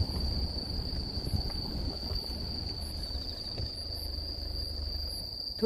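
Night insects calling in one steady, high, unbroken tone, over the low rumble of a car driving slowly.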